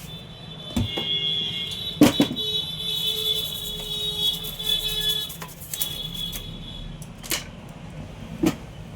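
A few sharp clicks and knocks, the loudest about two seconds in, over a steady high-pitched electronic whine.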